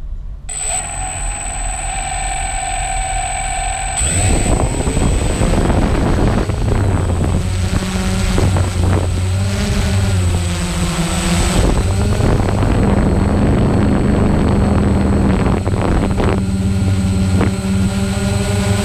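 DJI Phantom V1.1.1 quadcopter's four brushless motors and propellers, heard from the drone's own camera: spinning at idle, then about four seconds in going up to lift-off throttle and running loud and steady in flight, the pitch dipping and rising briefly in the middle as the throttle changes. Wind buffets the microphone underneath.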